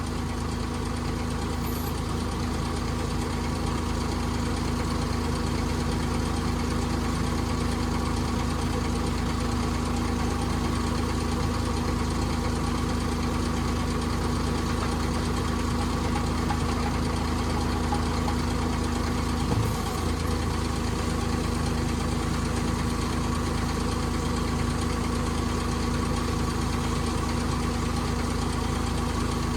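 A pile driver's engine idling steadily. There is one brief knock about twenty seconds in.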